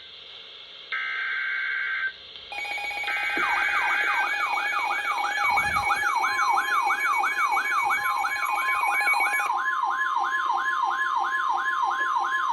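Emergency Alert System signals for a flash flood warning. First come short screeching data bursts of the header, each about a second long, then a loud alert tone from about two and a half seconds in. The alert is a steady tone with a siren-like pitch sweeping rapidly up and down over it, about two and a half sweeps a second.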